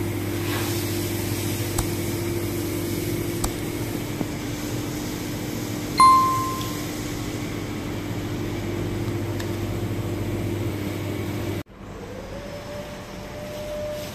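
Steady low machine hum of kitchen equipment, with a single bright bell-like ding about six seconds in that rings briefly and fades. Near the end the hum cuts off and a different hum starts, its tone rising and then holding steady.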